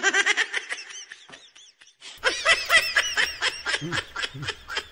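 High-pitched giggling laughter in rapid pulses, in two bouts with a short lull about two seconds in.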